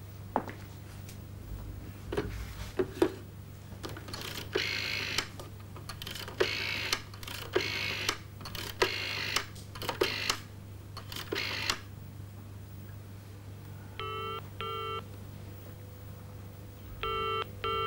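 A rotary telephone dial is spun and whirs back after each of about six digits. Then the telephone ringback tone comes twice as a pair of short beeps, the line ringing at the other end.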